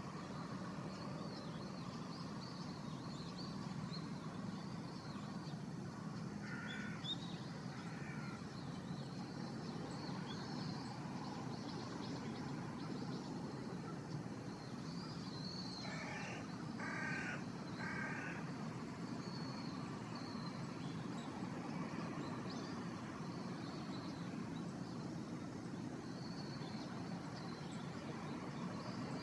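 A crow cawing, twice about a quarter of the way in and three times just past the middle, over a steady low hum and faint high chirps of small birds.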